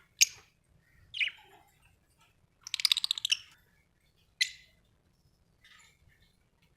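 Budgerigar chirping in short, separate calls, with a quick run of rapid chatter about three seconds in and another sharp chirp a second later.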